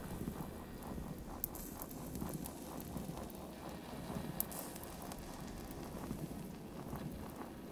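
Quiet experimental electronic music played live: a crackling, rain-like noise texture, with a soft rapid pulsing of about four beats a second through the first few seconds that then fades into the crackle.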